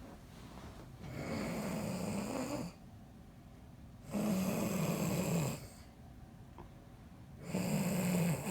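A man snoring heavily in his sleep: three long snores, each about a second and a half, coming roughly every three seconds with quiet breaths between.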